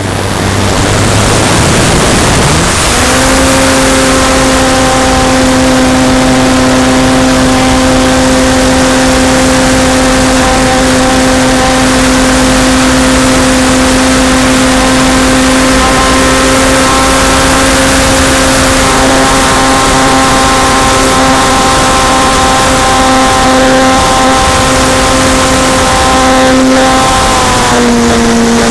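Radio-controlled model airplane's motor and propeller heard from a camera on the plane, with wind rush over the microphone. The pitch climbs as the throttle comes up a few seconds in, holds steady through the flight, then eases down a little near the end.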